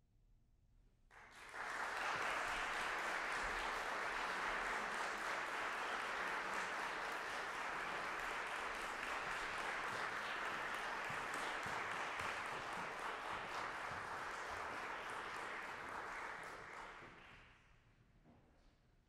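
Audience applauding: the clapping breaks out suddenly about a second in, holds steady, and dies away near the end.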